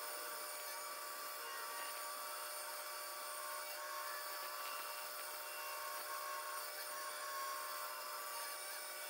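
Pegas scroll band saw running steadily, its narrow blade cutting a curved line through a wooden panel fed by hand.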